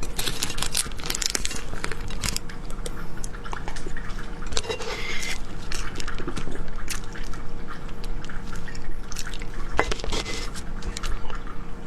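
Close-miked wet mouth sounds of someone eating soft cake: many small squishy clicks and lip smacks, over a faint steady hum.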